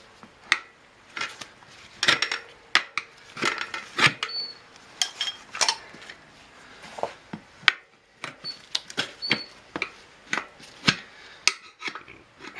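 Metal tire irons clinking and knocking against a spoked motorcycle wheel rim as the tire is worked off it: irregular sharp clanks, a few of them ringing briefly.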